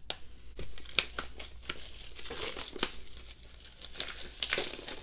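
Album packaging and inserts rustling and crinkling as they are handled, with irregular small clicks and crackles.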